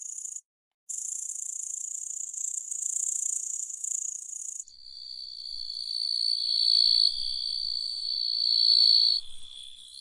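Grasshopper-type insect stridulation. First a very high, hissy buzz, cut by a brief silence about half a second in. Near the halfway point it changes to a louder, steadier, high-pitched trill that swells and then fades before the end.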